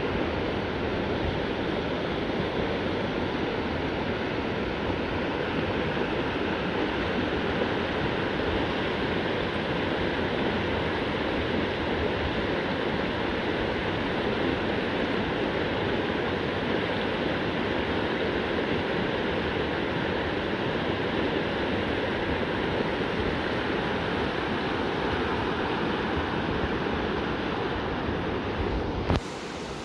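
Shallow river rapids rushing steadily over rocks. Near the end it breaks off with a sharp click and drops to a quieter water sound.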